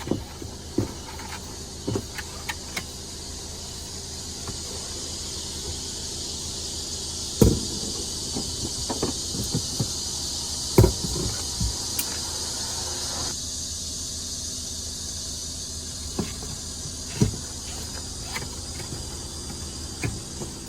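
Scattered metallic clicks and knocks of strap hooks and fastening rings being handled, louder knocks about a third and halfway through, over a steady hiss and low hum that thins out about two-thirds of the way in.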